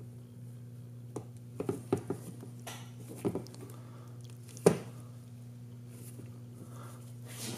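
Small clicks and knocks of drone frame parts being handled: a knurled aluminium standoff pressed through a TPU mount, with one sharper knock about two-thirds through. A steady low electrical hum runs underneath.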